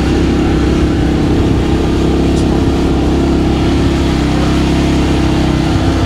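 Motorcycle engine running steadily at an even cruising speed, heard from the bike itself with road noise.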